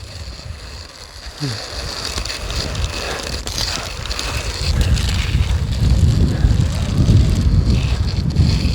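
Wind buffeting the microphone: a low, fluttering rumble that gets much louder about halfway through, over a faint crackling haze.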